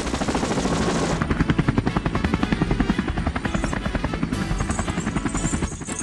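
Helicopter sound effect: rotor blades chopping in a fast, steady beat.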